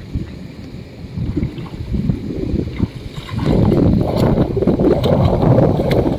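Water splashing as a swimmer strokes and kicks through a river pool, getting louder about halfway through.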